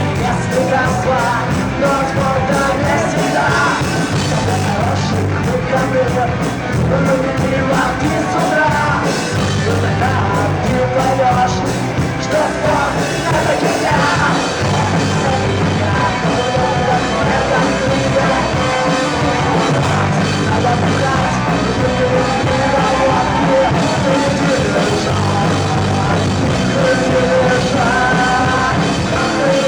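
Rock band playing live, loud, with a singer's voice over guitars, bass and drums.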